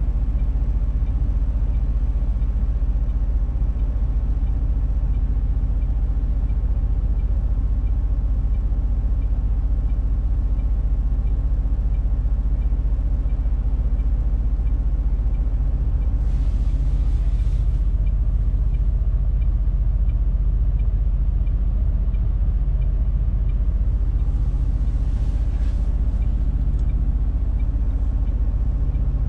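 MAN TGX 470 truck's inline-six diesel idling, heard from inside the cab as a steady low rumble while stopped. Two short hisses of air come through, about halfway through and again near the end.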